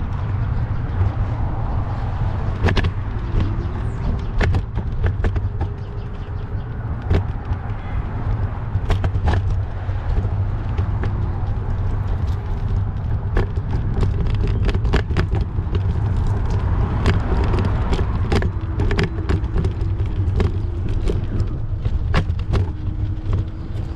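Riding noise from a bicycle in city traffic: a steady low rumble of wind and road on the microphone, with many scattered clicks and rattles and cars passing.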